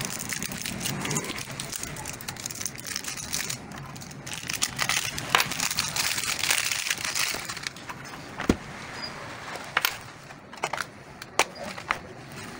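Clear plastic shrink-wrap being torn and peeled off a cardboard phone box by hand, a dense crinkling crackle with sharp clicks. After about eight seconds it thins to scattered taps and clicks as the box is handled.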